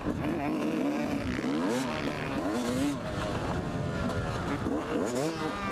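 Yamaha YZ250 two-stroke dirt bike engine revving hard under riding load, its pitch climbing and dropping over and over as the throttle is worked through the gears.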